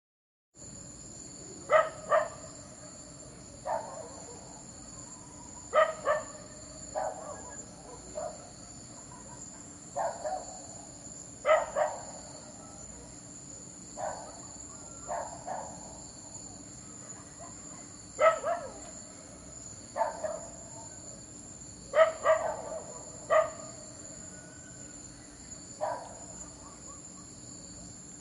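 A dog barking repeatedly in short single and double barks, one every second or two, over a steady high-pitched trill of crickets or other night insects.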